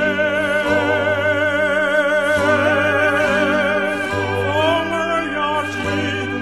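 Music: a singer holds a long "wu-wei" call with strong vibrato over a steady instrumental accompaniment.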